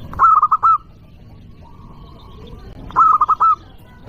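Zebra dove (perkutut) singing: two loud phrases of four or five quick, clipped cooing notes, about three seconds apart.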